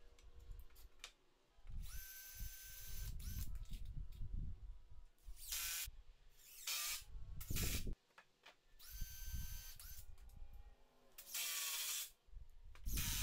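DeWalt cordless drill driving screws into 2x4 framing: several short runs, each motor whine rising in pitch as it spins up and then holding steady, with some shorter noisier bursts in between.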